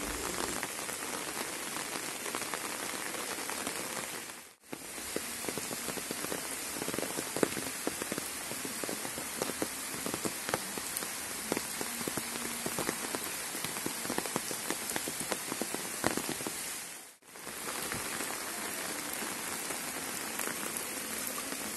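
Steady rain falling on flooded, muddy ground and standing water: an even patter of many small drops. It drops out briefly twice.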